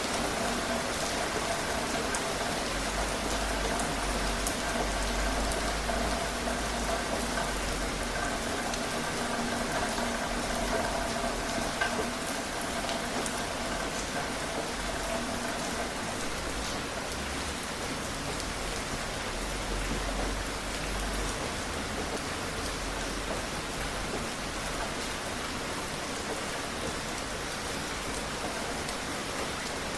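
Steady rain falling: an even hiss of many drops hitting a surface. A faint steady tone sits underneath for about the first half, then fades out.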